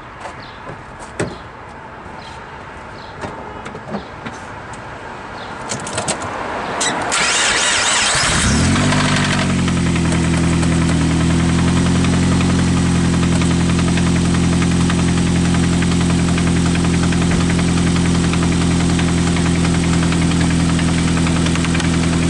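A few light clicks, then about seven seconds in a car engine is cranked by the starter, catches and settles into a steady idle. The running engine carries a knock that the mechanic takes for rod knock: a connecting rod banging on the crankshaft.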